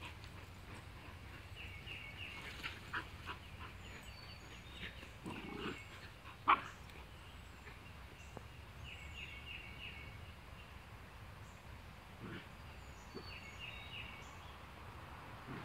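Puppies at play, one giving a single sharp yip about six and a half seconds in, with a few fainter short sounds before it. Birds chirp in quick runs of repeated notes in the background.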